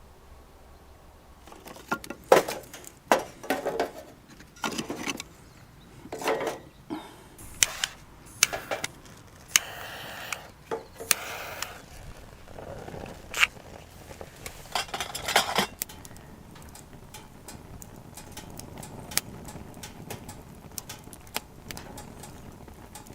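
Camp cookware and utensils being handled: a run of clinks, knocks and clatters, with two short scraping stretches near the middle. They thin out to a few faint ticks for the last several seconds.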